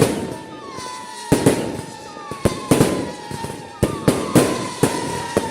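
Aerial fireworks going off in a rapid, irregular series of sharp bangs, several in quick succession in places, each followed by a short crackling tail.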